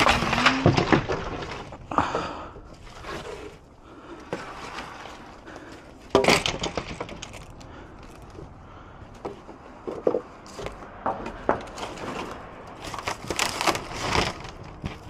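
Weathered wood boards and plywood being handled, dragged and dropped onto a debris pile: irregular knocks, clatter and scraping, with the loudest thump about six seconds in.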